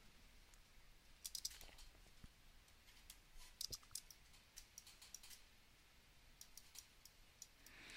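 Faint, irregular clicks of a computer mouse and keyboard over near silence.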